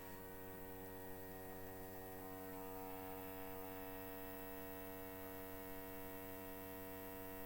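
Low-pressure (0.2 bar) electric fuel pump for a carburettor engine running with a steady electric hum. It is wired to the polarity marked on it and is humming but not pumping, failing to draw petrol while dry.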